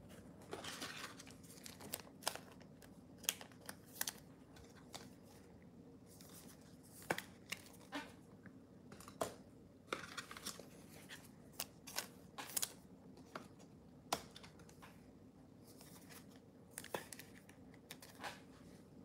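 Trading cards and a foil pack wrapper being handled: scattered light clicks and taps with a few brief rustles.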